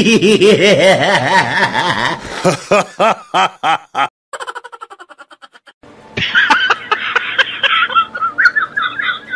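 Dubbed laugh sound effects: fast, repeated ha-ha laughing for about four seconds, then after a short, quieter pause a second, higher-pitched laugh.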